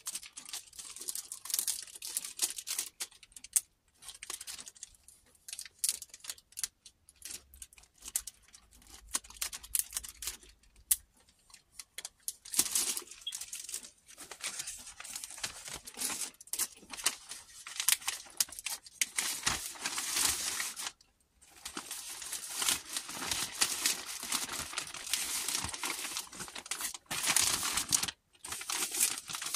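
Plastic packaging crinkling and rustling as hands handle and open it, going in fits and starts with a few brief pauses.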